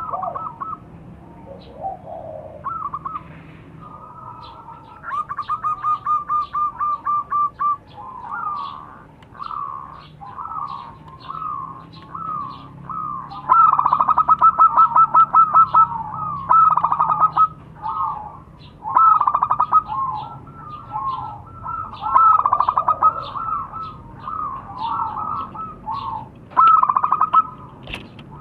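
Zebra doves (perkutut) calling over and over: rapid staccato cooing phrases, some overlapping one another, louder from about halfway through.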